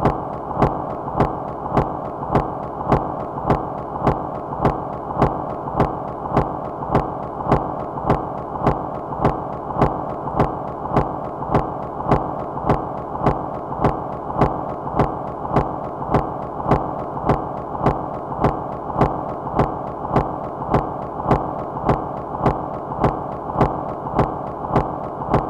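Minimal micro-industrial noise music: a sharp click repeats evenly about twice a second over a steady, dense hiss that is heaviest in the low and middle range, with a faint steady high tone above it.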